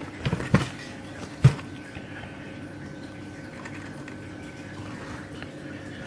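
A few short knocks and bumps from a cardboard box being handled, the loudest about a second and a half in, then quiet room tone with a faint steady hum.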